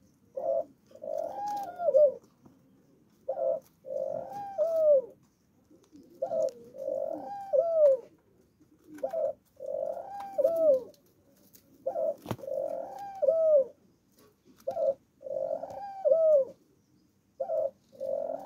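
Dove cooing close by, a repeated two-part coo: a short note, then a longer rolling coo that rises and falls away at the end. It comes about every three seconds, seven times.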